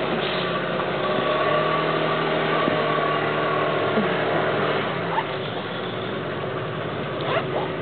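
A steady motor drone with several held tones, easing slightly about five seconds in, with a few faint short calls over it.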